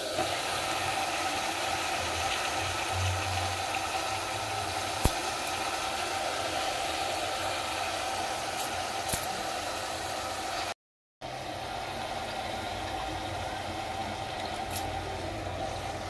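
A steady whirring hum with a hiss, with a few faint clicks over it.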